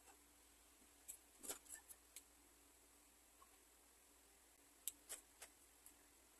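Faint plastic clicks of felt-tip markers being handled as they are swapped, caps pulled off and snapped on: a quick cluster of clicks about a second in and another about five seconds in, over near silence.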